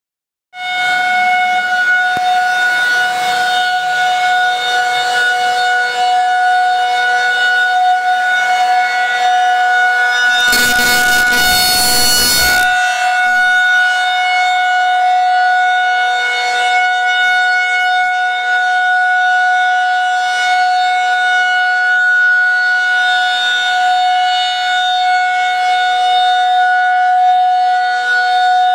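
Outdoor tornado warning siren blasting a steady two-note tone that holds its pitch without rising or falling. A rush of noise covers it for about two seconds near the middle.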